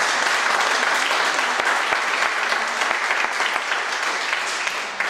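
Audience applauding, a dense steady clatter of many hands clapping that tapers off near the end.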